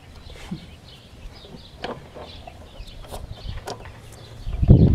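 An adjustable wrench clicks a few times against the rear axle nut of a scooter as the nut is worked loose, with a dull thump near the end. Birds chirp faintly in the background.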